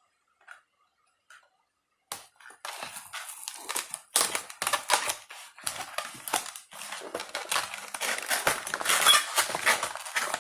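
Plastic and cardboard toy packaging being handled and pulled open, a dense run of crackling, clicking and scraping that starts about two seconds in after near silence.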